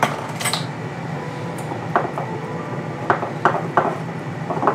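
Fork and plastic measuring spoon clinking against a small metal pot and a ceramic bowl while orange juice is stirred into icing sugar, a handful of scattered clinks, most of them in the second half. Under them runs the steady hum of the air fryer baking.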